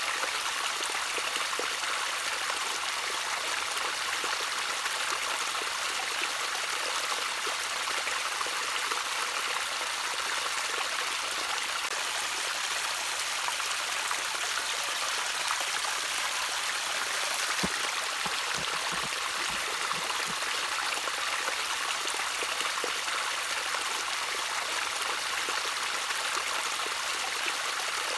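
Water trickling gently in a small stream: a steady, even rush of flowing water.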